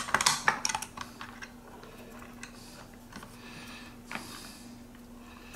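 Light metal clicks and taps of fingers handling a small cable plug and pliers on a tabletop, bunched in the first second, then quieter fiddling over a faint steady hum.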